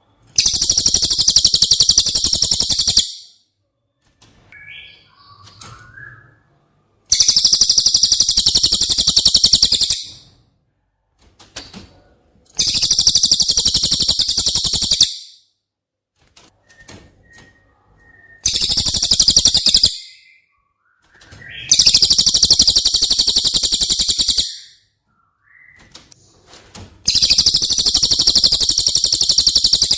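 Cililin songbird singing: six loud, very fast, high-pitched trills of about three seconds each, with short pauses between them.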